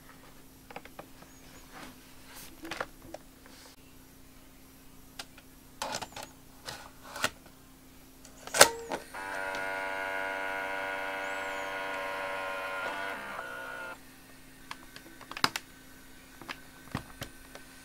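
Plastic clicks and knocks as a cable is plugged into a Kodak Kodavision camcorder and the unit is handled. Then comes a sharp click and a steady motor whine for about five seconds as the machine powers up, followed by a few more light clicks.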